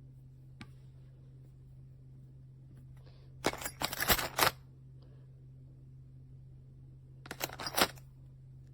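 Two short bursts of clicking and clattering, like hard objects being handled, about three and a half seconds in and again near the end, over a steady low hum.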